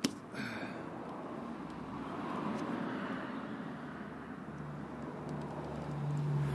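Steady road-traffic noise, with a passing vehicle's low engine hum building in the last couple of seconds. A sharp click comes right at the start.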